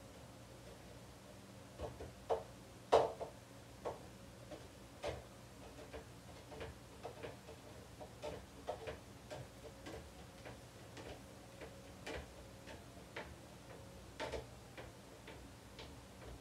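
Kitchen sounds at an electric pancake griddle: scattered light clicks and taps, the loudest about three seconds in, over a faint steady hum.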